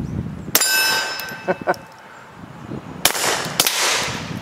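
Suppressed Beretta 21A .22 LR pistol firing: a muffled shot about half a second in, followed by a steel target ringing. Two more shots come about half a second apart near the end, without the ringing.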